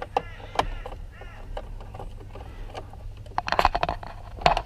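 Scattered clicks and knocks from handling a car's steering-wheel airbag module as it is worked loose after its Torx screws are backed out, with a louder flurry of knocks about three and a half seconds in and another near the end.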